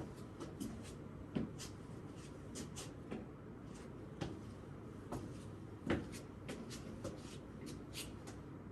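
Irregular light clicks, taps and scuffs of a person moving and handling things in a small room, over a steady low room hum.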